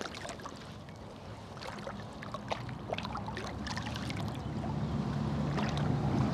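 Lake water splashing lightly and trickling around hands and a large carp held in the shallow margin, a scatter of small drips and splashes over a low steady background.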